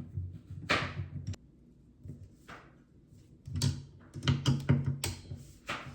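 Scattered knocks, clicks and scraping rustles of hands handling PC parts during assembly. They are busiest in the second half.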